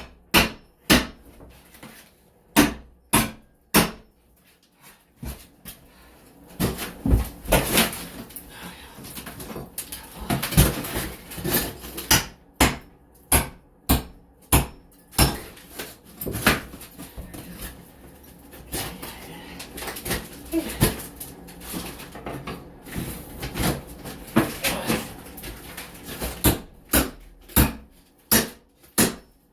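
Repeated hammer strikes, about two a second, then a stretch of scraping, prying and scattered knocks, then quick strikes again near the end: wall material being knocked off by hand in demolition.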